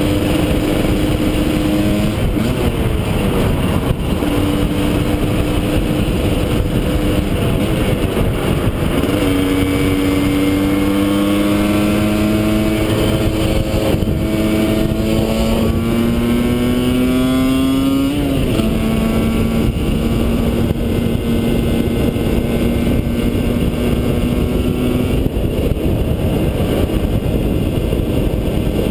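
Husqvarna SM 125's two-stroke single-cylinder engine with a Jollymoto aftermarket exhaust, under way. Its pitch holds steady, drops off about two seconds in and comes back, then climbs slowly for several seconds before falling sharply at an upshift about eighteen seconds in. It holds steady again after that, over a constant rush of noise.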